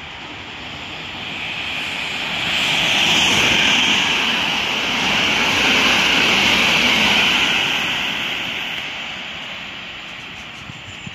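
Electric multiple-unit passenger train running through a station at speed: a rushing noise of wheels on rail and air. It builds over the first few seconds, stays loud for about four seconds, then fades away.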